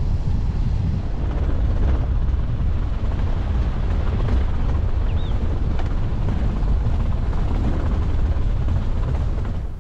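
A car driving along a wet road: a steady low rumble of engine and tyres, with wind buffeting the microphone. It fades out at the very end.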